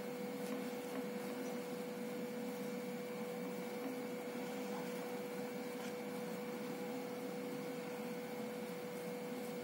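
Steady electrical hum with a constant mid-pitched tone and a fainter higher one, unchanging throughout.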